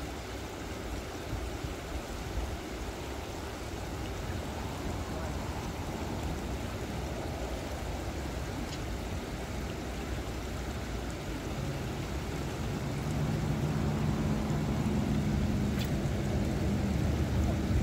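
Steady rush of water flowing over a concrete spillway, with a low wind rumble on the microphone. About twelve seconds in, a low steady hum joins and the sound grows a little louder.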